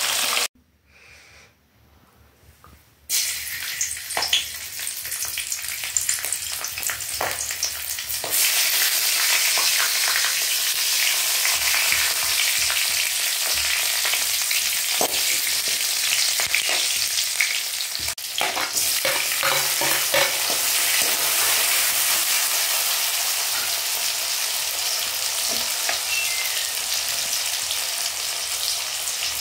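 Hot oil sizzling and crackling in a kadai, first as fish steaks deep-fry, then, after a brief near-silent break, as whole chillies and garlic, and later onions, fry in it. The sizzle gets louder and denser about eight seconds in.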